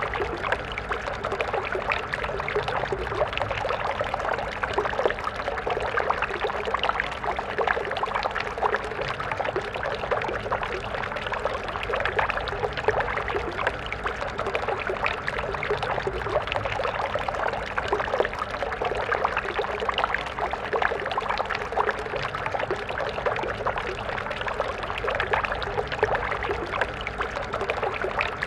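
A stream of water flowing and splashing steadily, a dense even rush of small splashes and gurgles.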